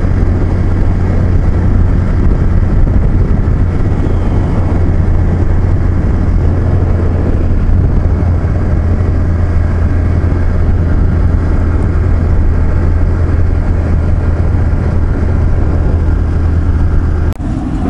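Motorcycle riding at a steady speed: a constant low engine drone mixed with wind rush on the rider's microphone, with a brief click near the end.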